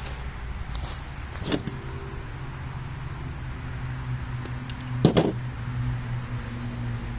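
Small tools and parts being handled at a workbench: two sharp knocks, one about a second and a half in and a louder one about five seconds in, over a steady low hum.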